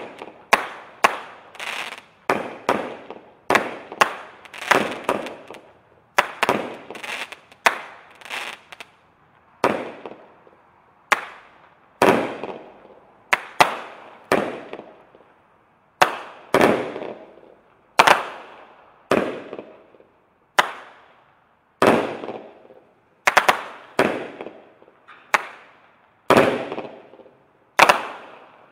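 Rocket Fireworks' Phoenix 39-shot fireworks cake firing. A long series of sharp bangs, bunched close together at first and then about one every second and a half to two, each trailing off in a fading crackle as the crackling-rain stars burst.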